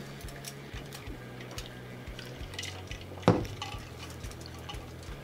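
Small clicks and rustles of food being handled on a sheet of aluminium foil at a table, with one sharp knock about three seconds in.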